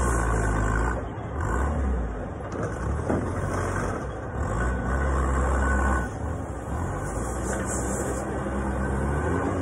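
Forklift engine running and revving in surges as the forklift pulls back and drives off.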